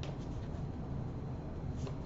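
Low, steady background hum, with a faint tap of tarot cards being handled at the start and again near the end.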